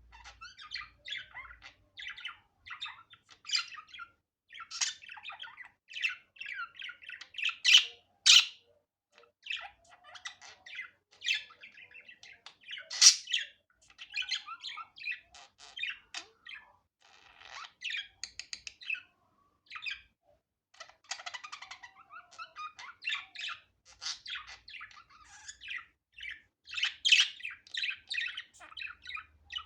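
Budgerigar chattering and warbling continuously in rapid chirps, with a few louder sharp squawks scattered through.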